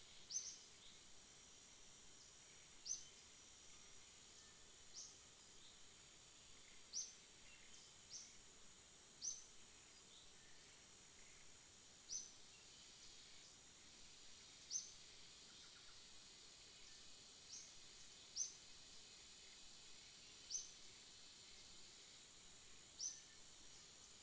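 Short, high, single chirps, about a dozen of them at irregular intervals of one to three seconds, over a faint steady high-pitched hiss.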